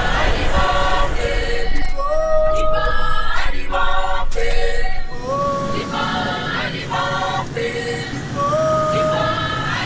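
Choral music: several voices singing a melody that repeats every few seconds, with sliding notes.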